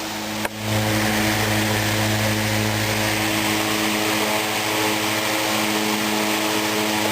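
1914 Century S-3 model 15 electric desk fan running steadily: its motor hums under the rush of air from its blades. A brief dip about half a second in, then it runs on a little louder.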